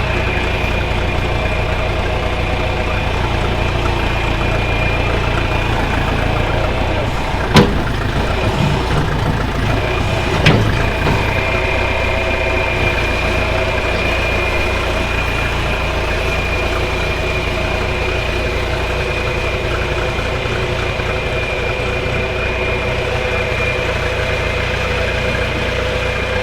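A backhoe's engine running steadily while it works, with two sharp knocks about three seconds apart near the middle, the first the louder.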